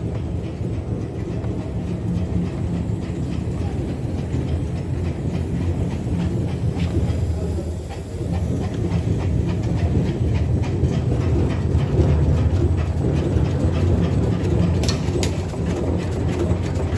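1200 CNC paper pleating machine running, a steady low rumble with a fast, continuous clatter of strokes, and a couple of sharper clicks near the end.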